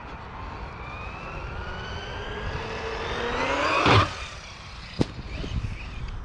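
Losi Lasernut RC buggy's electric motor whining steadily up in pitch under throttle, loudest about four seconds in, then cutting off suddenly. A single sharp knock follows about a second later.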